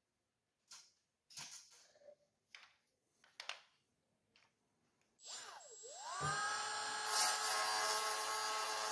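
A few light clicks, then a small handheld rotary tool spinning up about five seconds in and running at a steady whine, used to grind off the edges of a part that doesn't fit.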